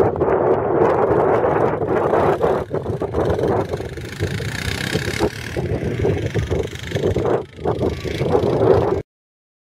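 Quad bike (ATV) engine running as it drives off across a field, easing a little in loudness about halfway through as it moves away. The sound cuts off suddenly near the end.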